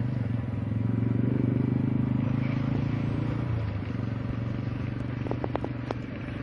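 A steady low drone, like an engine running nearby, that eases slightly about three and a half seconds in. A few brief clicks near the end.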